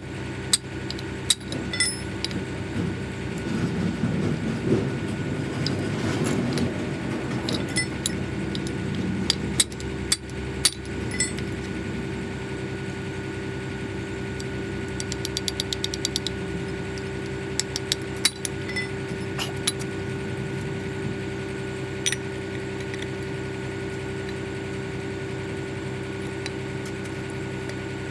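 An engine idling steadily, with scattered sharp metallic clinks and knocks of tools and parts, and a quick run of rapid clicks about halfway through.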